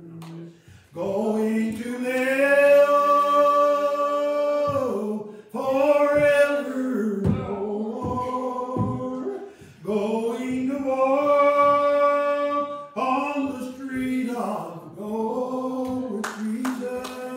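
A man singing a slow gospel hymn unaccompanied, holding long notes in phrases with short breaths between them; it starts about a second in.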